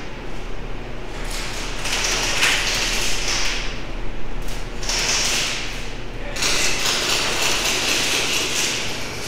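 Airsoft guns firing in full-auto bursts: a rapid, rattling mechanical clatter in three stretches, the last starting sharply and running about three seconds.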